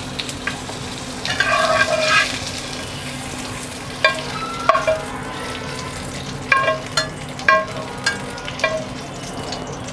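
Bell pepper pieces sizzling in oil in a nonstick frying pan while a slotted metal spatula stirs and scrapes them. From about four seconds in the spatula strikes the pan about seven times, each a sharp tap with a short metallic ring.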